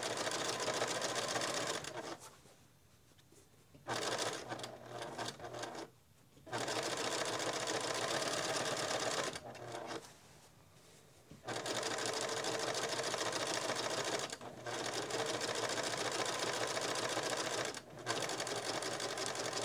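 Pfaff electric sewing machine stitching a binding strip along the edge of a quilt. It runs in spells of a few seconds and stops briefly several times, for about two seconds near the start and again about halfway through.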